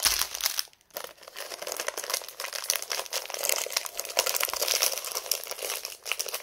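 Clear plastic packaging from a diamond painting kit crinkling and rustling as it is handled, with a brief pause about a second in.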